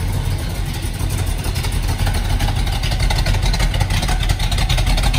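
1973 Dodge Challenger Rallye's V8 idling steadily through its dual exhaust, a little louder from about two seconds in.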